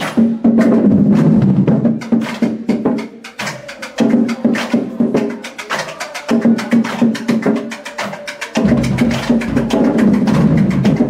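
Marching band drumline playing a cadence at close range indoors: rapid snare strikes and stick clicks over bass drums, with sustained low notes in stretches that break off briefly a few times.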